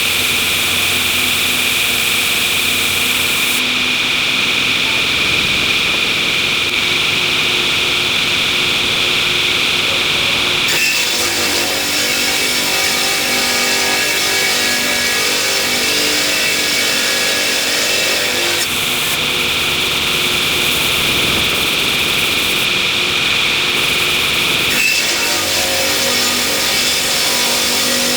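Sawmill machinery running steadily and loudly, a high-pitched hissing whine over a lower engine drone. The sound changes abruptly about eleven, nineteen and twenty-five seconds in.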